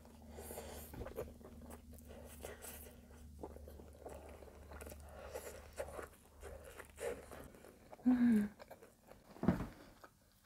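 Close-miked chewing of a soft, gooey caramel cinnamon French toast bake made with brioche, with small wet mouth clicks. About 8 seconds in comes a brief hummed 'mm', and soon after a single short low thump.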